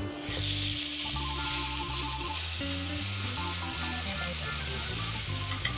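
New York strip steak sizzling loudly as it is laid into an oiled cast iron grill pan heated until smoking; the sizzle starts suddenly about a third of a second in and keeps up steadily as the steak sears.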